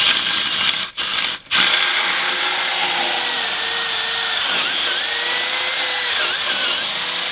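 Cordless drill boring a large vent hole through a wooden side wall. It gives two short pulls, then runs steadily, its motor whine dipping in pitch now and then as the bit bogs under load.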